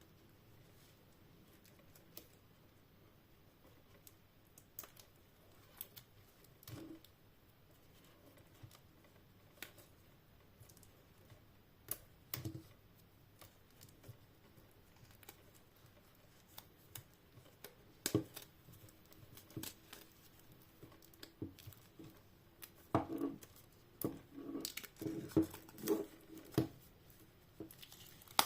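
Hands unwrapping and handling a steelbook Blu-ray case: scattered light taps and clicks, then a busier stretch of plastic wrapping tearing and crinkling near the end.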